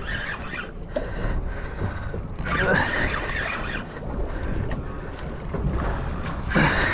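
Wind buffeting the microphone on open water, with a few short pitched sounds rising and falling: one about three seconds in and one near the end.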